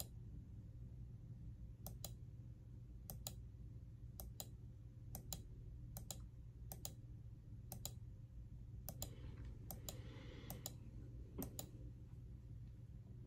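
Computer clicks, each a quick press-and-release pair, about one a second as listing photos are paged through, over a low steady hum.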